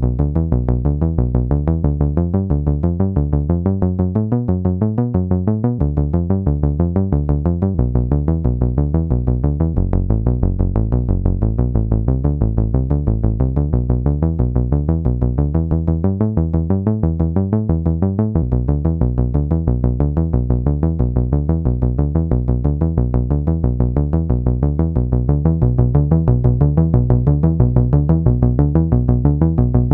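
Roland SH-101 monophonic analogue synthesizer playing a fast repeating bass sequence from its internal step sequencer, one note at a time. The tone is bright and rough, shaped by its self-oscillating low-pass filter, and grows a little louder about 25 seconds in.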